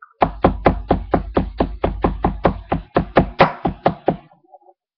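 A metal spoon hitting Oreo cookies in a bag against a counter, crushing them: quick, even knocks, about five a second, stopping about four seconds in.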